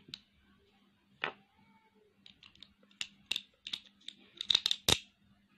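Hard plastic and metal parts of a Beyblade Burst top (Victory Valkyrie) clicking and snapping together as it is assembled by hand: scattered sharp clicks that come thicker about four seconds in, with the loudest one near the end.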